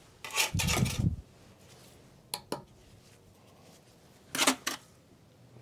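A mason's steel trowel scraping and scooping mortar for about a second, then two quick clinks, and another short scrape near the end.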